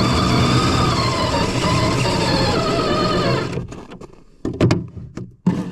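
FPV drone motors whining, their pitch drifting up and down with the throttle, then cutting out about three and a half seconds in, followed by a few short knocks and brief bursts of sound.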